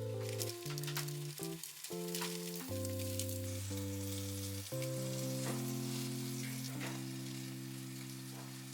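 Food sizzling and crackling in a hot frying pan, under background music with sustained chords and a bass line.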